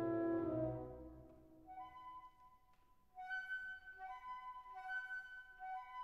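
Background instrumental music: a held low chord fades away in the first second, then after a short lull a high, light melody moves back and forth between two notes.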